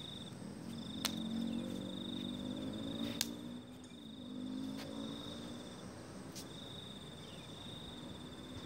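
An insect trilling steadily at a high pitch, with short breaks just after the start and about six seconds in, over a low hum. Two sharp clicks stand out, about a second in and about three seconds in.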